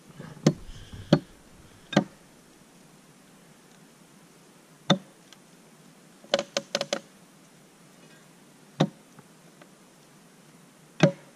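Sharp knocks of an axe on a log, about ten irregular strikes with a quick run of four about six seconds in: the axe being worked into the cut to free a chainsaw pinched by the log.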